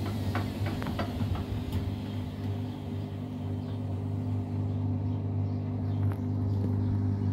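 Arçelik 3650 front-loading washing machine turning its drum during an unbalanced intermediate spin: a steady low motor hum, with a few rattling clicks in the first second or so.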